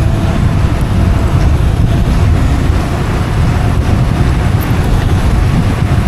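Wind buffeting the microphone and tyre noise on asphalt from a moving 72 V, 3000 W DIY electric downhill bike: a loud, steady, wavering low rumble with no engine sound.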